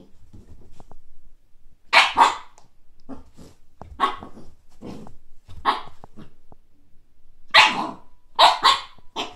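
Siberian husky puppy barking in short play barks at a frisbee: a double bark about two seconds in, single barks every second or so after, and a fast cluster of barks near the end.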